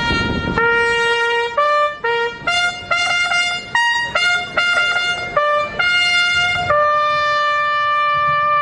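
Solo trumpet playing a slow melody of separate held notes, ending on one long held note near the end.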